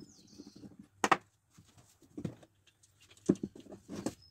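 Steel engraver-vise parts and a T-handle key being handled on a wooden parquet floor: light clicking, then four sharp knocks about a second apart as metal is set down on the wood.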